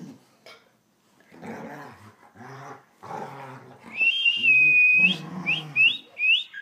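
Two German Shorthaired Pointers play-fighting: low growling in short bouts, then a loud, high whine held for about a second, followed by three short rising whines near the end.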